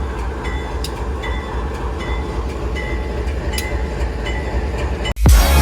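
Union Pacific freight train rolling past with a steady low rumble, its wheels clicking at intervals over the rail joints. Just past five seconds the train sound cuts off abruptly and loud electronic music begins.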